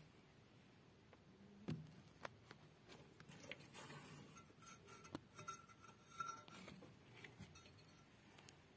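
Faint scattered clicks and light scraping of hand-tool work as the pulley and belt are fitted to a washing machine's new wash motor and its screws tightened with an Allen key, with a few sharper clicks.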